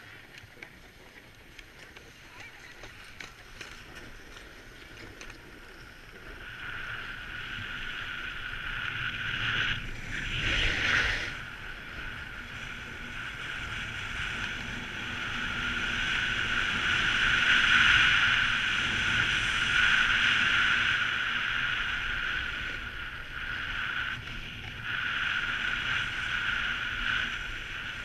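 Snowboard sliding and carving on groomed snow: a steady scraping hiss that builds about a quarter of the way in, with a brief louder rush a little over a third of the way through, and is loudest past the middle.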